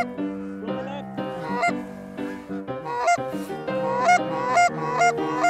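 Geese honking: short repeated honks, coming about every half second in the second half, over background piano music.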